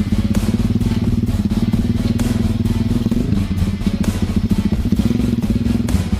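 Honda Tiger's single-cylinder engine running steadily through an open Herex racing exhaust, a fast train of exhaust pulses, with a slight change in revs about three seconds in. Background music plays along.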